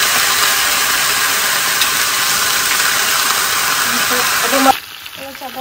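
Chicken pieces sizzling skin side down in hot oil in a frying pan, a loud steady hiss that drops away suddenly near the end.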